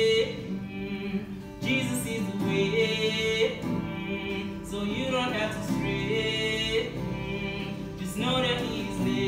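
A man singing a gospel song to guitar accompaniment, holding long wordless notes in phrases that start about every three seconds over steady guitar chords.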